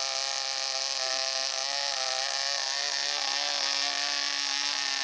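Tiny 0.17 cc Moskito model-aircraft combustion engine running with its propeller at a steady high speed: a high, even buzz with a slight waver in pitch.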